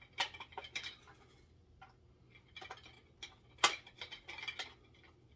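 Hard plastic toy parts clicking and clacking as carbonite-block bounty figures are clipped onto the hangers of a Hasbro Razor Crest playset. An uneven scatter of light clicks, the sharpest a little past halfway, with a quick run of small clicks just after it.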